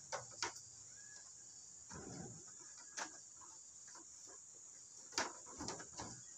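Faint, steady high-pitched insect chorus, with a few scattered knocks of feet and movement on the wooden porch and ladder-steps: two near the start, one midway and several close together near the end.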